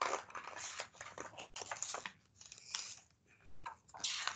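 Paper pages of a picture book rustling and flapping as they are turned, in a string of short crackly bursts with brief pauses between.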